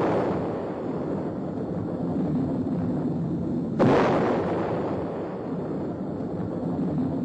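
Atomic bomb test explosions on an old film soundtrack: a deep, continuing rumble, with a second sudden blast about four seconds in that rolls on into more rumbling.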